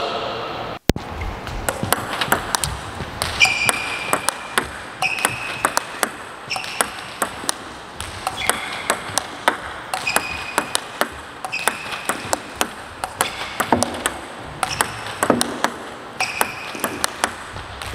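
Table tennis balls clicking sharply off the table and the paddle as short serves are returned with backhand flips (chiquita-style receive), a new ball about every one and a half seconds.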